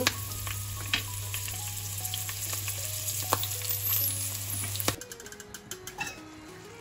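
Slivered ginger, garlic and slit green chillies sizzling in hot oil in a small frying pan, with a few clicks of a wooden spatula. The sizzle cuts off suddenly about five seconds in.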